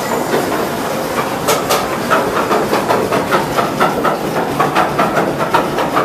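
Log flume ride mechanism clacking in a fast regular rhythm, about four clacks a second, over a steady rush of noise from the flume.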